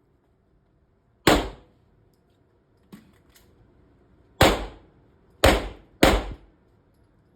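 Four pistol shots from a course of fire: one, a pause of about three seconds, then three more, the last two half a second apart, each with a short ringing tail. A few light clicks come between the first and second shots.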